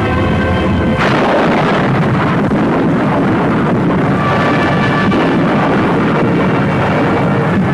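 A B-17 Flying Fortress crash-landing on its belly: a sudden loud crash about a second in, then a continuous loud rushing, scraping noise as the bomber skids across the ground.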